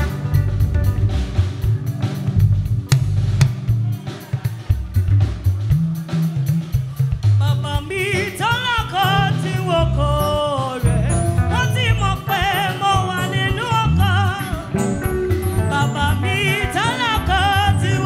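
Live church band playing gospel music with drum kit and guitar; a choir's voices come in singing about eight seconds in.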